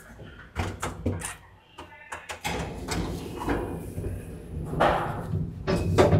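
Door handling: a few short clicks and knocks, then a low rumble and two heavier thumps in the second half, like a door being opened and shut.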